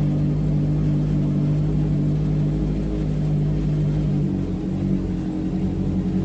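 Honda Africa Twin CRF1000's parallel-twin engine running at a steady cruise while riding. About four seconds in, the engine note changes.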